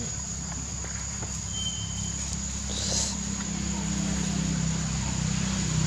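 Outdoor ambience: a steady high insect buzz throughout, a short high whistle about a third of the way in, and a low engine drone that grows louder in the second half.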